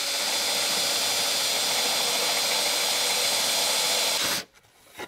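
Festool cordless drill driving a Forstner bit into a poplar board: a steady whirring hiss of the motor and cutting bit, cutting off suddenly about four seconds in.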